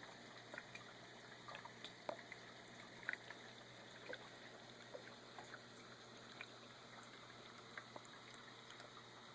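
Small terrarium waterfall trickling faintly, with irregular little drips and splashes over a low steady hum.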